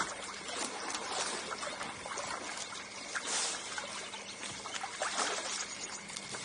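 Pool water trickling and lapping, with small light splashes scattered irregularly through it as a person moves in the water.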